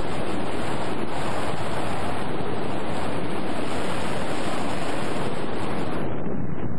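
Steady rushing wind noise on the microphone of a GoPro mounted on a Penguin FPV model plane in flight. The hiss thins slightly near the end.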